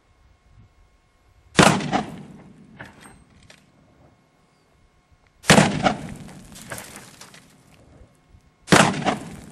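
Three rifle shots from a .45-70 Government, about four seconds and then three seconds apart, each trailing off over about a second.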